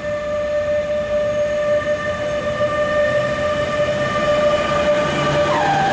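Two DB electric locomotives hauling a freight train slowly past, over the rolling noise of the wheels. Their traction equipment gives a steady high whine of several tones, and about five and a half seconds in the whine drops sharply in pitch as the sound grows louder.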